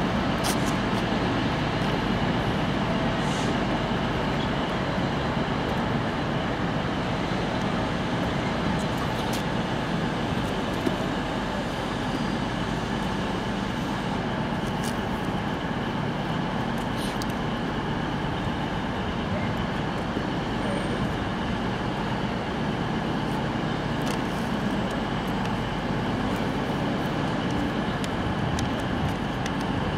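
Class 66 diesel locomotive's two-stroke V12 engine running steadily as it hauls a train slowly past over the tracks, with a few sharp clicks along the way.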